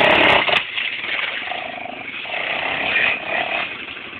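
Yamaha Raptor sport quad's engine, loud as it passes close by and then dropping off about half a second in, with the revs rising and falling as it rides away.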